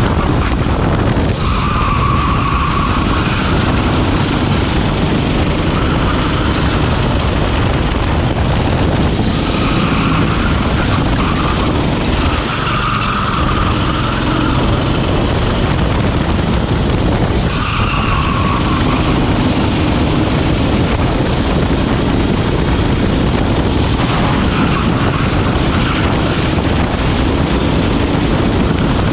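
Racing go-kart engine running hard at race speed, heard from onboard the kart. Tyres squeal briefly through corners several times, about a second in, around the middle and again past the halfway point.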